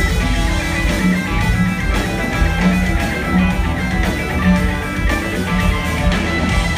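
A rock band playing live at full volume, guitar over bass and drums with a steady beat and a repeating bass note, recorded from the audience.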